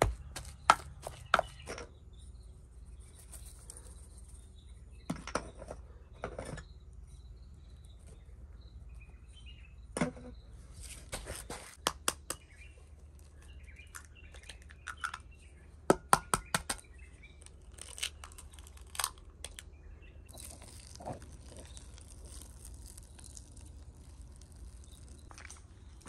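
Hands mixing and kneading a mashed potato and minced meat cutlet mixture in a bowl, heard as scattered sharp clicks and taps that come in short clusters.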